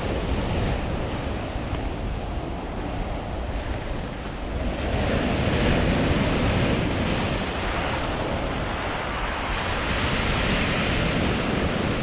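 Black Sea waves breaking onto a pebble beach and washing up over the shingle: a continuous surf rush, moderate rather than stormy, that swells louder about five seconds in and again near the end.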